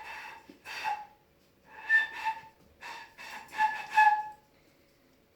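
Puppy whining: about seven short, high-pitched whimpers in small clusters.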